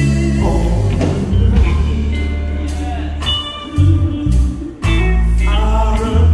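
Live gospel singing: several women's voices into microphones over electric guitar and a heavy bass line, played loud through a PA.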